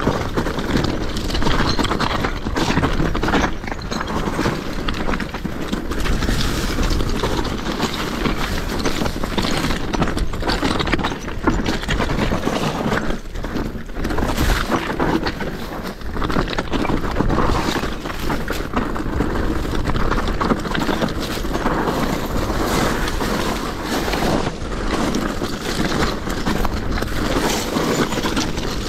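Commencal Meta SX V4 full-suspension mountain bike descending a loose, stony trail at speed: the tyres crunch over gravel and rocks while the chain and frame rattle in a dense, irregular clatter of small knocks.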